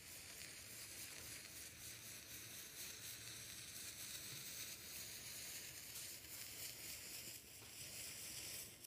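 Matches burning one after another along a spiral metal holder: a faint, steady hissing sizzle of burning match heads that dies away suddenly near the end.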